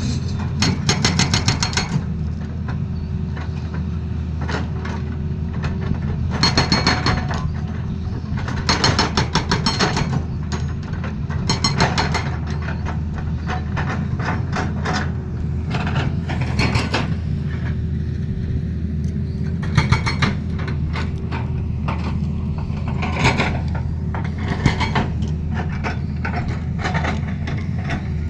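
Tata Hitachi excavator's diesel engine running steadily while its hydraulic breaker hammers in bursts of rapid blows, each burst a second or two long, several times over.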